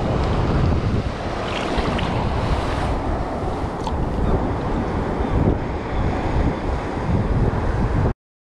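Strong wind buffeting the microphone over sea water washing around the shallows, a dense low rumble that cuts off suddenly about eight seconds in.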